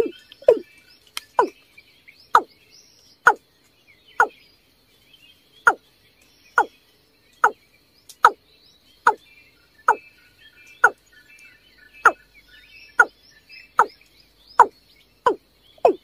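Watercock calling: a series of short, deep, falling notes, quick at first and then about one a second. Faint high chirps and a thin steady high whine sound behind them.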